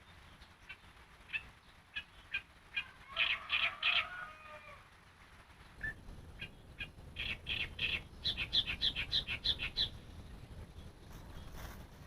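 Yellow-vented bulbul (trucukan) singing: a run of quick chirps that builds into a dense, bubbly phrase about three to four seconds in, then a second run starting about six seconds in that ends in a fast string of bright notes.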